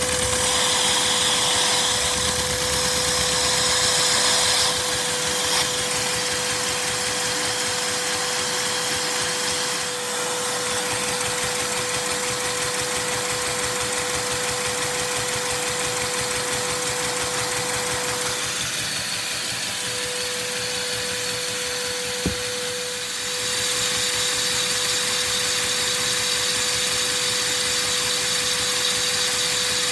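A LEGO flat-four oscillating vacuum engine running fast on a vacuum cleaner's suction: the steady drone of the vacuum cleaner under the rapid clatter of the plastic cylinders and crankshaft. The sound dips and changes for a few seconds about two-thirds through, with one sharp knock.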